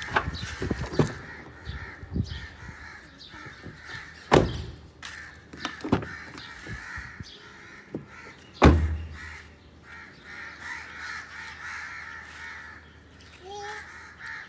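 Rear passenger door of a Honda City opened with sharp latch clicks and then shut with a heavy thump about two-thirds of the way through, the loudest sound. Crows caw in the background.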